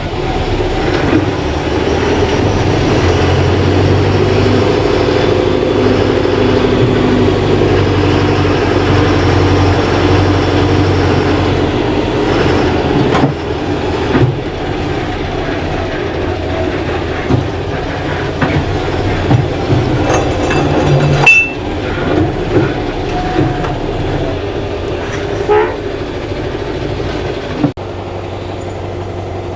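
Heavy diesel truck engine running steadily, a deep drone with an abrupt change in its sound near the middle and again near the end.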